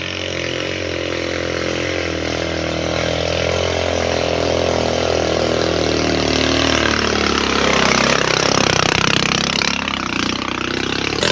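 Small motorcycle engine running as the bike rides toward the listener, growing steadily louder. Its note bends and breaks up as it passes close, about eight to ten seconds in.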